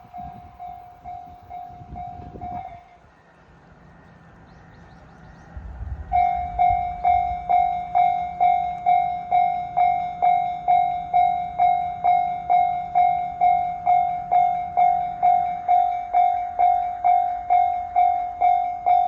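Japanese level-crossing alarm ringing its repeating electronic ding, quietly at first, then stopping about three seconds in. After a short lull with a low hum underneath, it starts again much louder at about two and a half strikes a second: the crossing has re-activated before its barriers have finished rising.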